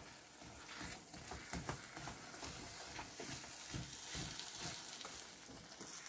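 Faint stirring and scraping of a wooden spoon through kuymak in a copper pan: cornmeal cooked in butter, with melting çeçil cheese. Butter sizzles softly underneath over low heat, with irregular short scraping strokes.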